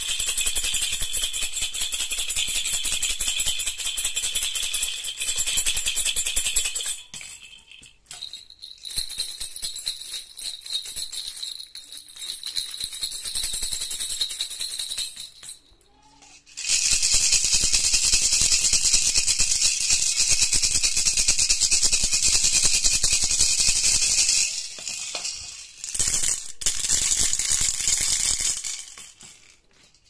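Plastic baby rattles (jhunjhuna) shaken by hand in quick, continuous rattling and jingling. There are short breaks as one toy is put down and the next picked up, and each rattle has its own sound.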